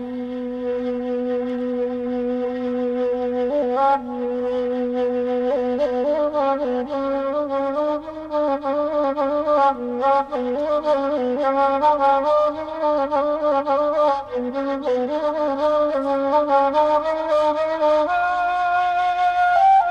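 Saluang, the Minangkabau end-blown bamboo flute, playing solo. It holds a long low note for about four seconds, then moves into a wavering, ornamented melody that steps up to a higher note near the end.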